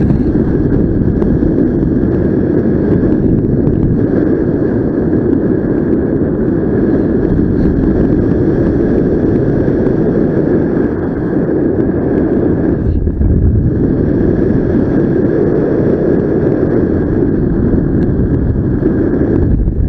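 Wind from the flight's airspeed buffeting the camera microphone of a paragliding pilot in flight: a loud, steady rush that drops briefly about two-thirds of the way through. A faint steady high tone runs beneath it.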